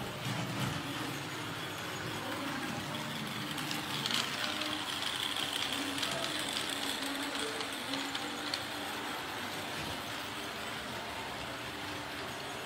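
Toy train running on its track: a steady mechanical running noise that gets a little louder for a few seconds in the middle.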